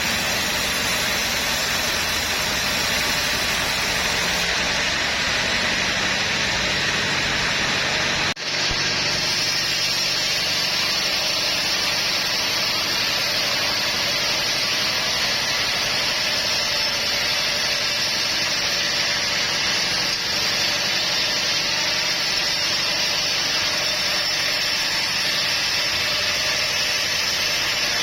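Sawmill machinery running steadily, a loud engine-like drone with a dense mechanical noise over it. There is a brief sharp dropout about eight seconds in, after which the sound carries on slightly changed.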